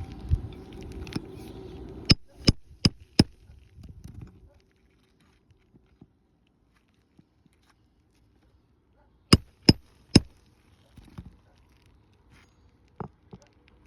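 Hammer driving roofing nails into shingles: a run of four quick strikes about two seconds in, then three more about nine seconds in and a lighter one near the end.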